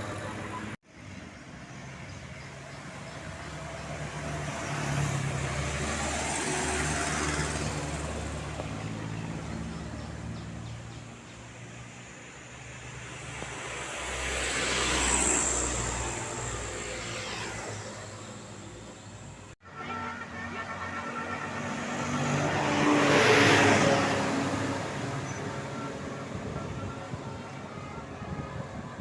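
Road traffic: vehicles driving past one after another, each pass swelling and fading with engine noise. The sound is split into three short stretches by abrupt cuts.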